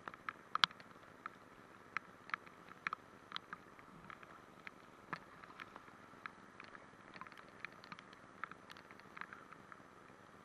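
Whitewater river rapids making a steady rush, with many irregular sharp ticks, several a second.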